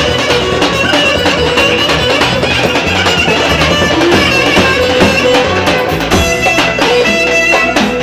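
Live Roman havası dance music played by a band through loudspeakers: keyboard and hand drum keep a steady dance beat under a sustained, reedy lead melody.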